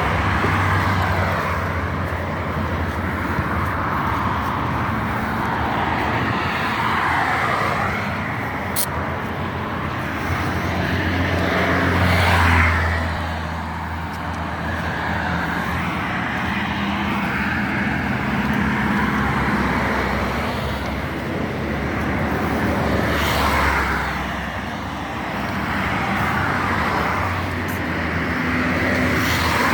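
Road traffic: cars going past, the noise swelling as one passes about twelve seconds in and again a little after twenty seconds, over a continuous low engine hum.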